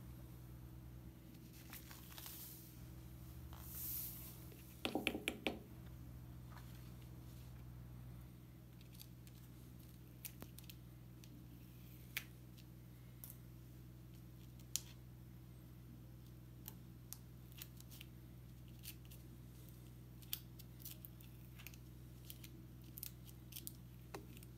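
Protective backing paper being peeled off a sand-art board's adhesive sections, faint, with short tearing hisses early on, a quick run of about five clicks around five seconds in, and scattered small ticks and scratches after that.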